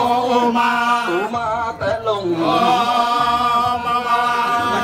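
Voices chanting in long held notes that bend and slide in pitch, with short breaks between phrases.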